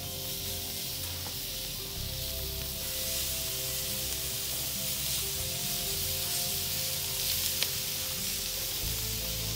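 Marinated turkey breasts sizzling on a hot gas grill grate, a steady hiss.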